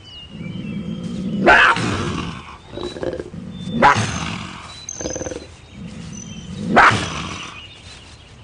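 A big cat growling three times, each growl swelling and ending in a loud, harsh snarl.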